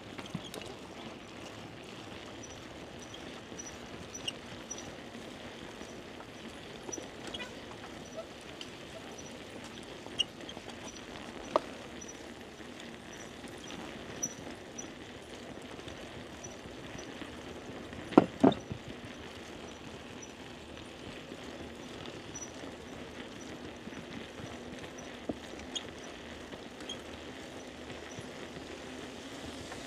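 Bicycle in motion: steady tyre and ride noise with small rattles, and two sharp knocks close together about eighteen seconds in, the loudest sounds.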